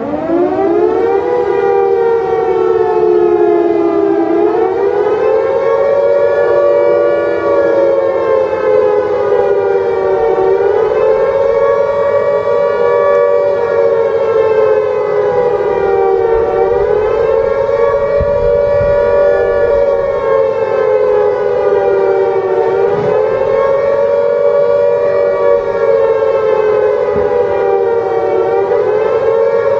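A siren winds up from a low pitch just as it starts, then wails slowly and steadily up and down, about one swing every six seconds.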